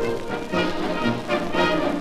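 Soviet military march music played by an orchestra, with brass.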